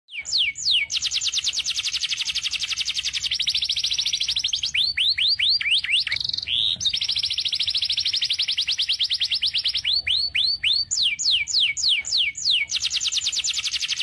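Male canary singing: long, very fast rolling trills, broken by a few falling swooping notes at the start and near the end and by runs of rising notes in the middle.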